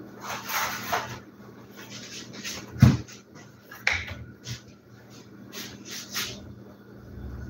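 Silicone baking mat being handled and smoothed flat on a kitchen counter by gloved hands: rubbing and rustling noises, with one dull thump about three seconds in and a sharper click about a second later.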